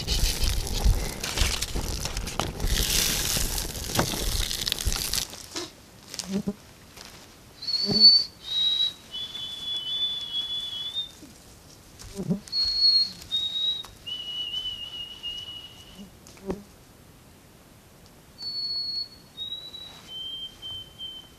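Opens with about five seconds of loud rushing noise. Then come three clear whistled phrases in the pattern of a white-throated sparrow's song: each steps down in pitch over two or three pure notes and ends on a long, slightly wavering held note. The phrases are the sparrow singing and a man whistling its song back to it.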